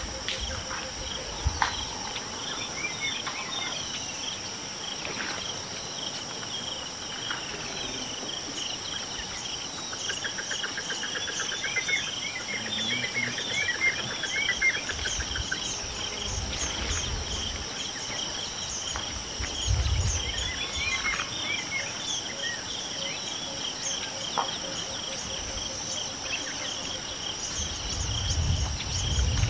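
A steady chorus of insects buzzing and chirping in the riverside bush, with bird calls over it, including a trill in the middle. A low rumble comes twice, the second near the end.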